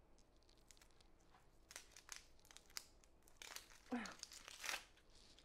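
Dry onion skin crinkling and tearing as it is peeled off a whole onion with a knife, in short scratchy bursts, busiest around the middle and near the end.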